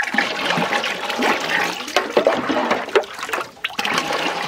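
Thick mango juice poured from metal mugs into a large aluminium pot of juice, a continuous splashing, gurgling pour, with a few short knocks.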